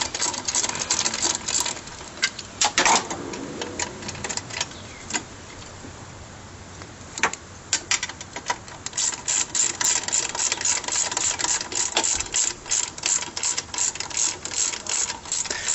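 Socket ratchet clicking in quick runs as it is swung back and forth, backing out the alternator's top adjusting bolt to slacken the alternator and power steering belt. The clicking breaks off for about two seconds midway, then resumes.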